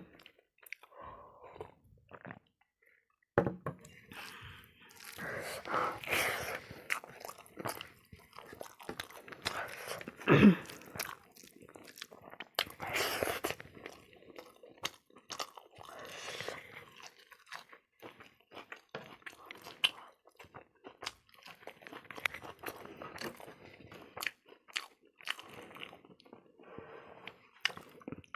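A person chewing and crunching food close to the microphone: irregular crisp crunches and mouth sounds from a meal of rice and pickled pork trotter, with a few louder crunches spread through.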